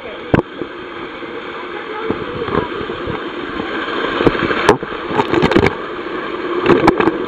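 Rushing water and a rider sliding down a fibreglass water slide, the steady rush building, with sharp knocks as the camera bumps the slide. Loud splashing near the end as the rider drops into the water.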